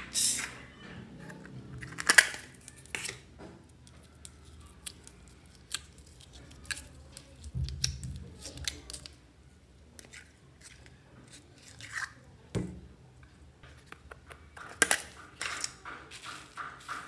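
Slime being squished and kneaded by hand, with irregular wet pops and crackles of trapped air and a dull thump about halfway through.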